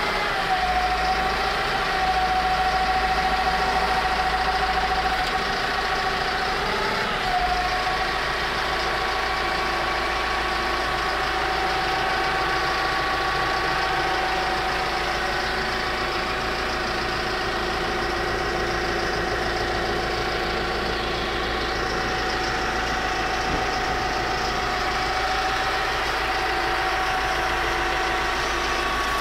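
McCormick X4.50 tractor's diesel engine idling steadily, heard from inside the cab, with a steady whine over the engine note that wavers briefly about seven seconds in.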